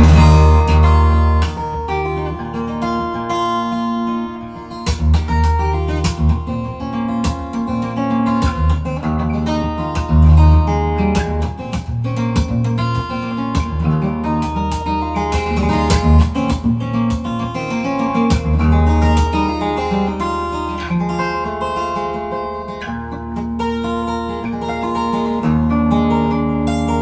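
Steel-string guitar played fingerstyle in a solo improvisation, capo on the neck: deep bass notes ring every few seconds beneath picked melody lines and chords.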